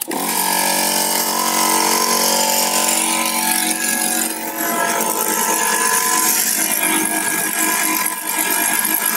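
Electric power tool running steadily at a constant pitch, with a hiss over it, starting abruptly; the work of drilling anchor holes in a concrete roof and blowing out their dust.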